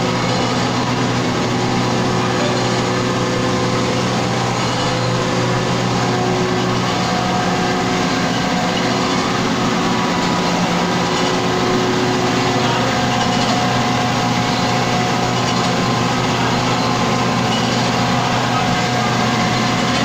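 Sawdust grinding plant running: an electric-motor-driven impact pulverizer, with a ribbon mixer, giving a loud, steady machine noise with several steady humming tones.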